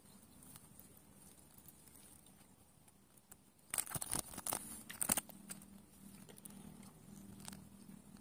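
Handling noise as a caught climbing perch is held and unhooked in cloth-gloved hands: faint rustles and clicks, then a short burst of loud scratchy rustling and sharp clicks about four to five seconds in.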